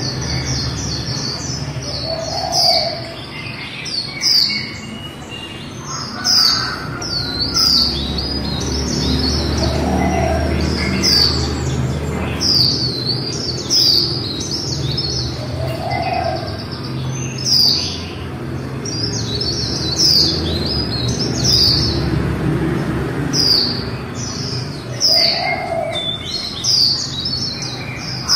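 Female white-eye calling in rapid twittering runs: short, high chirps that slide downward, coming in quick bursts of several notes again and again, over a low steady background hum.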